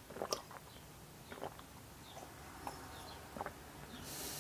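Faint scattered clicks and light taps of small handling, with a soft hiss near the end.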